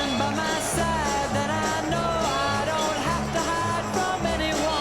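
Music: a repeating bass pattern under a sliding, gliding melodic line.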